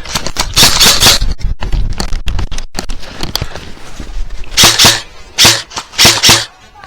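Airsoft guns firing: a quick string of sharp clicking shots, then several louder short bursts of fire near the end.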